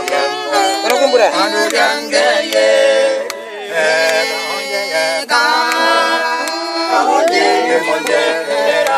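A group of voices singing together without instruments, the notes held and sliding, with sharp clicks scattered through it.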